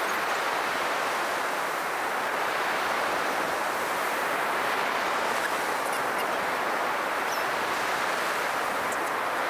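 Ocean surf breaking on a sandy beach, a steady wash of wave noise.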